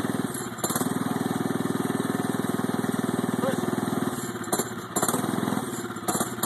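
Polaris 120 youth snowmobile's small single-cylinder two-stroke engine idling steadily. It dips briefly just after the start and drops a little in level about four seconds in, with a few light knocks.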